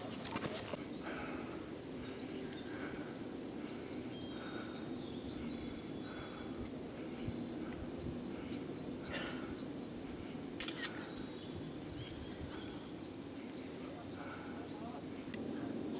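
Small songbirds chirping in high, rapid runs of notes over a steady low outdoor background, with two short sharp noises about halfway through.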